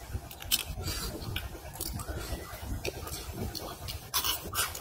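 Close-up crunching and chewing of small fried crabs, their shells cracking in irregular sharp crackles, with the densest, loudest crunches near the end.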